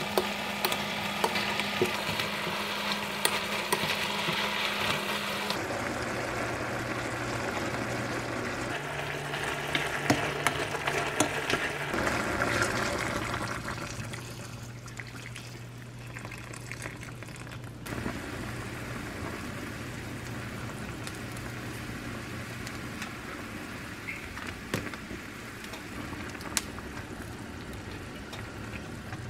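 Beef and thick green onions sizzling as they are stir-fried in a pot, with a spatula clicking and scraping against it. About halfway through, kelp broth is poured in, and the pot then simmers more quietly.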